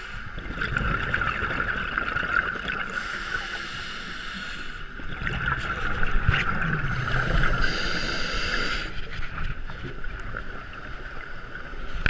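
Muffled underwater sound through a camera housing: scuba regulator exhaust bubbles rumbling in two long swells, a few seconds apart, over a steady high hum.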